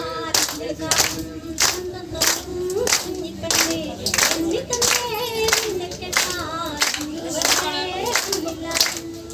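A group clapping in a steady rhythm, about two claps a second, in time with voices singing a melody.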